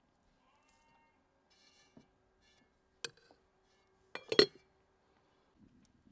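Metal spoon clinking against a white enamel pot and its lid, with a sharp clink about three seconds in and a louder cluster of clanks with a brief ring just after four seconds. Near the end a low crackle of a wood fire starts.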